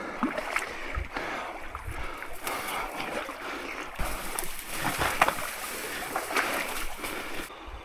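Tall dry grass and reeds rustling and crackling as someone pushes through them on foot, with scattered footfalls. The rustling is louder and hissier for a few seconds from about halfway in, then drops away just before the end.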